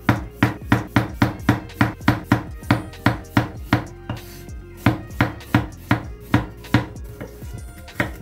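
Chef's knife slicing a carrot into rounds on a bamboo cutting board: steady knocks of the blade on the wood, about three a second, with a short break about four seconds in before the slicing resumes.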